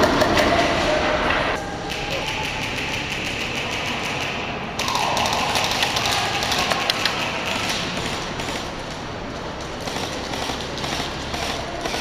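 Airsoft guns firing in rapid strings of sharp clicks and pops, mixed with thuds.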